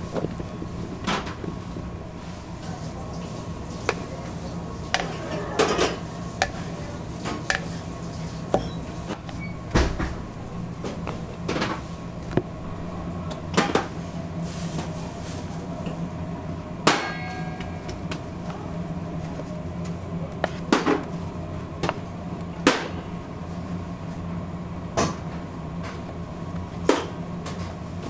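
Sharp knocks and clinks of metal bowls, utensils and sheet pans, irregular, about every one to two seconds, over a steady hum of kitchen machines. One clink a little past the middle rings briefly like struck metal.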